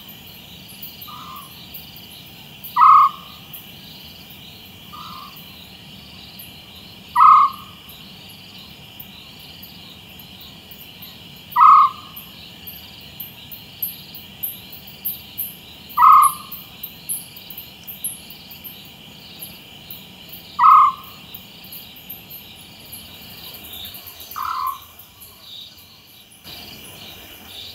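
African scops owl calling: a short, repeated call, five loud ones about four and a half seconds apart with fainter calls between them. A steady chorus of crickets chirrs underneath.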